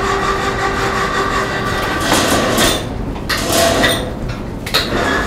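A large wood fire burning hard in a concrete pit oven used for Trang roast pork, a steady rushing rumble, with a few knocks and clatters partway through.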